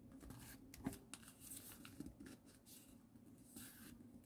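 Faint, scattered rustles and soft clicks of a sheet of paper being folded and creased by hand.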